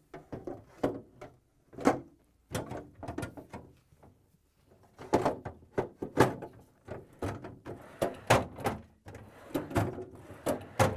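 Plastic freezer basket being fitted onto metal drawer slide rails: a run of clicks, knocks and rattles as its tabs are seated in the rail cutouts.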